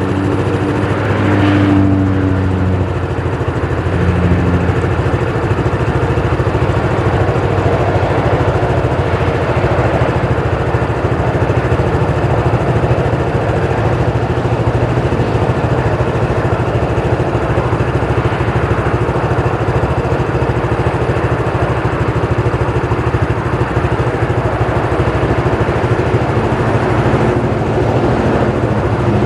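New Holland 8080 combine harvester's engine running steadily at a constant speed.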